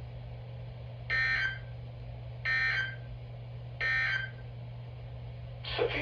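Three short bursts of EAS digital data tones from NOAA weather radio receivers, the SAME end-of-message code that closes the warning, each about half a second long and about a second apart, over a steady low hum.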